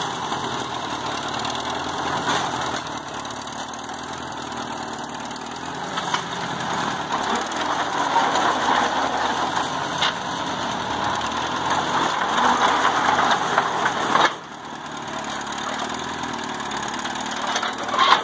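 An engine running steadily at idle, its level dropping suddenly about fourteen seconds in.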